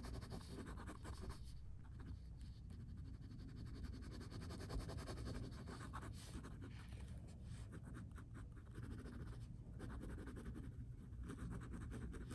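Drawing strokes scratching on paper, in spells of rapid back-and-forth strokes with short pauses between, as an armadillo is shaded in.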